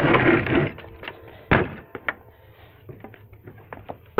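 A brief rush of scuffing, rustling noise, then one sharp knock about a second and a half in, followed by a few lighter clicks.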